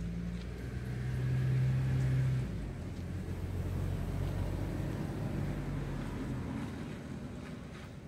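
An engine passing by, a low steady hum that swells to its loudest about two seconds in and then slowly fades.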